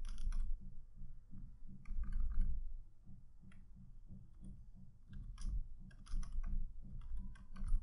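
Computer keyboard typing in short, irregular bursts of key clicks, with pauses between them, over a low background hum.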